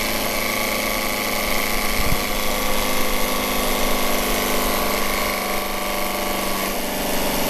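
Homemade pulse-driven magnet motor/generator running with a steady hum of many tones. It is gradually slowing down, braked by the back-EMF of its generator coils while they light an incandescent bulb.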